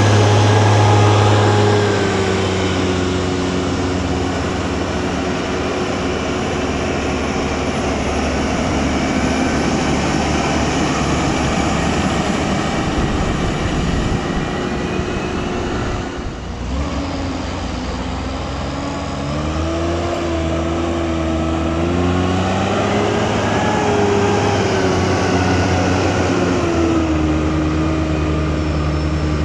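Heavy diesel engine of maize-silage farm machinery running hard and steady, its pitch shifting up and down in the second half as the revs change, with a brief drop a little past halfway.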